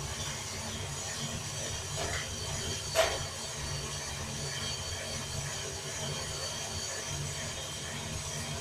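Prototype drum coffee roaster turning steadily, green beans tumbling and rattling inside the drum over a gas burner, with a low steady hum. A single sharp snap about three seconds in.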